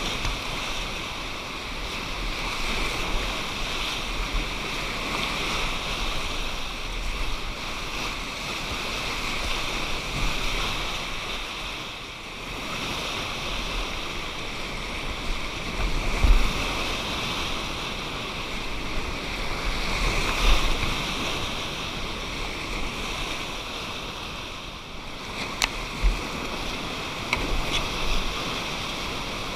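River whitewater rushing steadily. A few thumps and sharp knocks are heard in the second half.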